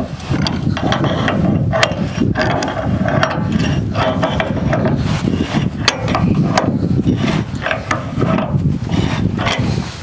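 Ratchet wrench being worked back and forth, a steady run of ratcheting clicks and strokes that stops at the end.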